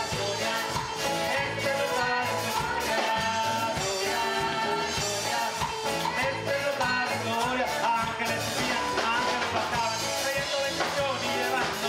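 Live band playing a song, with drum kit, guitars and keyboard, and a man singing lead into a microphone over a steady drum beat.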